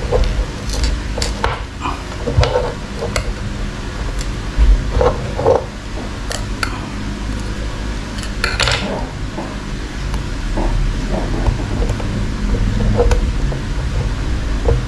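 Small metallic clicks and taps of steel tweezers and the open watch case being handled on a bench as a new button-cell battery is seated in the quartz movement. There is one brief scrape a little after halfway, over a steady low background hum.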